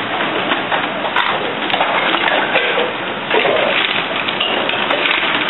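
Busy restaurant kitchen ambience: a steady, even hiss like rain, with a few light clinks of utensils and pans on top.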